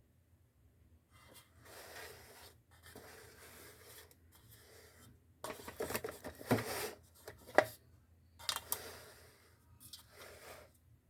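Someone biting and chewing slate pencils with gritty crunching. There are several crunching spells and a few sharper snaps about six to nine seconds in.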